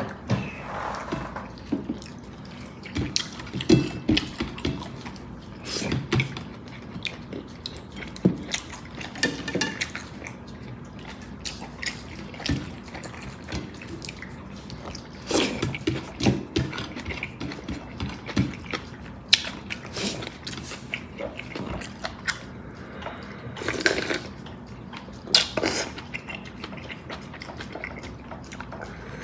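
Someone eating a bowl of bulalo (beef bone-marrow soup) with rice: irregular clinks of a utensil on the bowl, sips and slurps of broth, and chewing.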